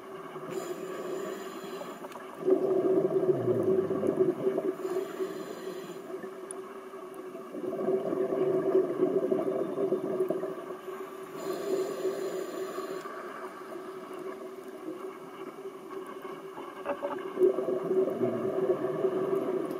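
Scuba diver breathing through a regulator, heard underwater: long bursts of exhaled bubbles every few seconds, with fainter hissing breaths between them.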